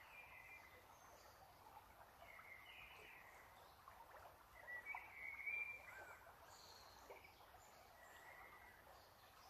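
Faint calls of a small songbird in the shrubbery, about four short calls under a second each, the loudest about five seconds in.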